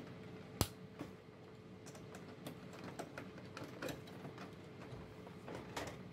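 Faint plastic clicks and taps from the back of a Xerox WorkCentre 3335/3345 scanner as a plastic cover for the document feeder's wires is pressed into place, with one sharper snap about half a second in. A faint steady hum sits underneath.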